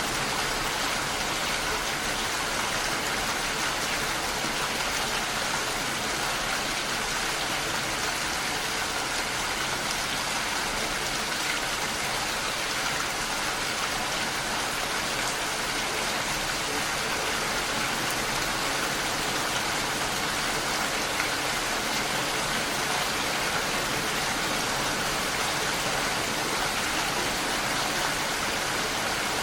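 Steady rain falling, an even unbroken hiss of many drops with no single drop or patter standing out.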